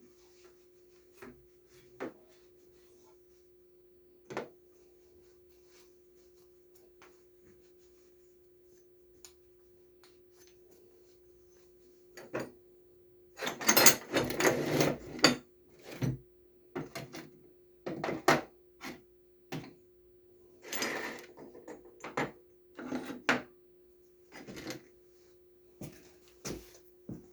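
Tools and parts being handled and set down: scattered clicks and knocks, then from about halfway a series of louder rattling and rubbing bursts, the loudest just past the middle. A steady low hum runs underneath.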